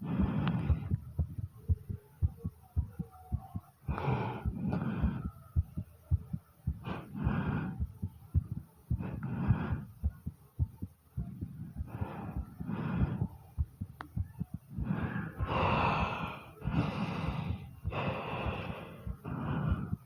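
A person's heartbeat, heard as a run of low thumps throughout, under slow deep breaths in and out every few seconds. The breaths are longest and loudest in the last third.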